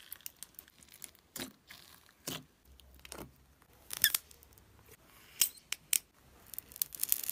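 Clear glitter slime squeezed and pinched between fingers, giving irregular sticky clicks and pops, the loudest about four seconds in and a quick run of them near the end.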